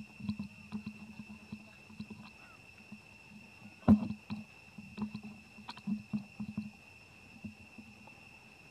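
Long-tailed macaques making runs of short, soft low grunts over the first seven seconds, with a sharp knock about four seconds in.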